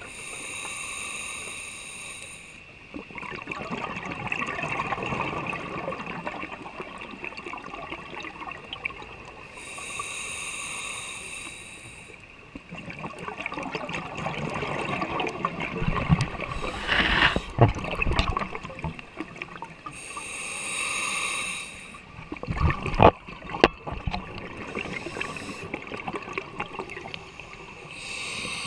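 Scuba diver breathing through a regulator underwater: about every ten seconds a short hissing inhale through the regulator, followed by a longer rush of exhaled bubbles. A few sharp knocks come around the middle.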